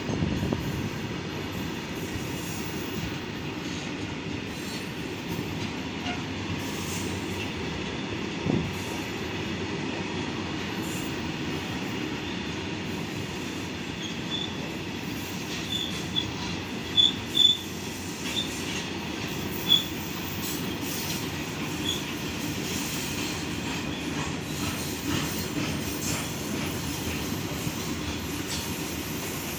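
Goods train wagons rolling along the track with a steady low rumble. In the middle there are a few short, high wheel squeals.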